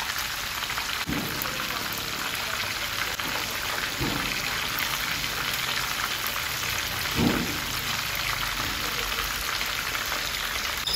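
Croaker fish pieces deep-frying in oil in a pan on low heat, a steady sizzle with a few soft low thumps at about 1, 4 and 7 seconds.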